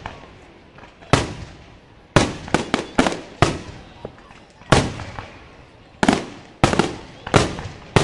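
Aerial firework shells bursting overhead: about a dozen sharp bangs, irregularly spaced and sometimes in quick clusters, each trailing off in an echo.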